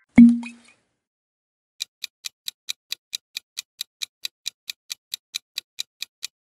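Quiz countdown-timer sound effect: clock-like ticking, about four to five ticks a second, starting about two seconds in while the timer bar fills. It is preceded at the very start by a brief, loud, low transition hit that dies away within half a second.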